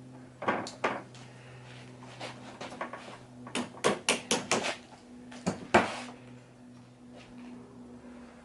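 Clicks and knocks of small parts being handled as the top boot is fitted onto a retractable screen housing: a quick series of clicks about four seconds in and a single sharper knock near six seconds, over a faint steady hum.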